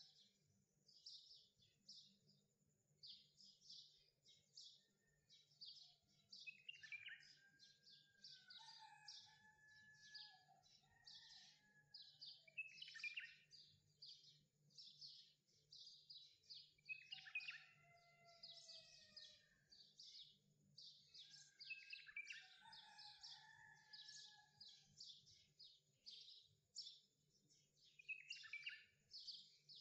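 Faint birdsong: rapid high chirps several times a second run on throughout, with slower whistled notes that slide downward every few seconds.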